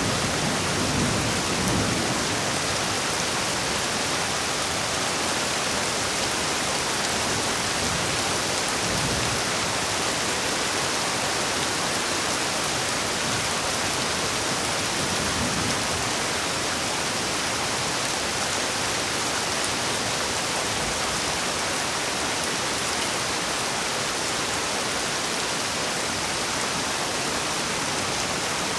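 Heavy rain falling steadily in a dense, even hiss. A low thunder roll fades out over the first couple of seconds, and faint low rumbles of distant thunder come about a third and about halfway through.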